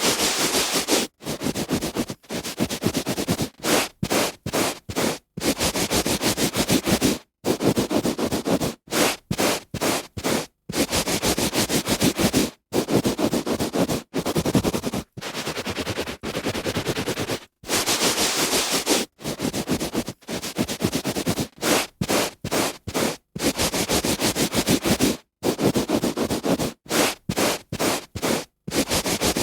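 A hand rubbing on a carpet: scratchy brushing strokes of the palm across the pile, some quick and choppy, some drawn out for a second or two, broken by short silent gaps.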